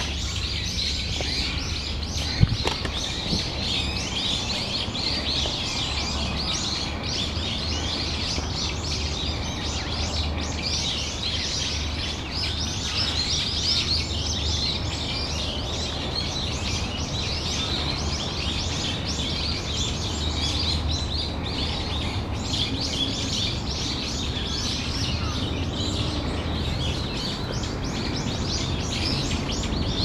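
A flock of brown-eared bulbuls calling together: a dense, continuous chatter of short, high chirps with no pause.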